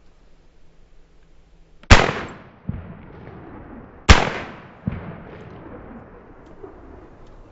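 Two shotgun shots about two seconds apart, each followed by a fainter echo less than a second later.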